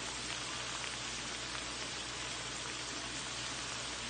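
Tomato-caper pan sauce bubbling at a boil in a wok: a steady, even hiss scattered with tiny pops.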